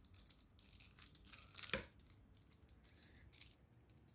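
Plastic 1x3x3 puzzle cube being scrambled by hand: faint clicks and scraping of the layers turning, with one sharper click a little under two seconds in.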